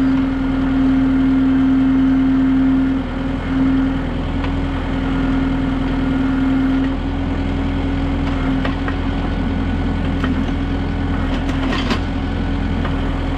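Kubota M6060 tractor's diesel engine running steadily while working the backhoe, a continuous drone with a strong steady tone that dips briefly about three seconds in. A few light knocks near the end.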